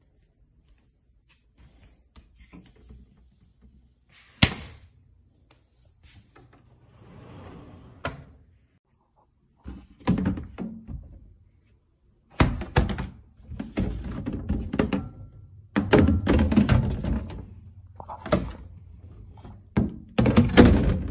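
Clunks, knocks and sliding rattles from a pull-out kitchen trash can being handled. There is one sharp knock about four seconds in. From about ten seconds on comes a run of thuds and sliding noise as the pull-out and its metal bins are moved.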